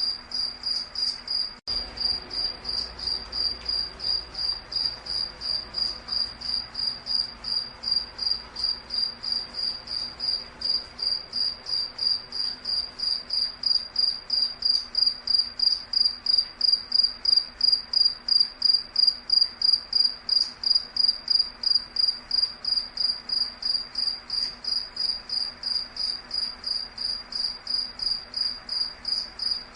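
A cricket chirping steadily in an even, high-pitched pulsing rhythm of about three chirps a second, getting a little louder in the middle.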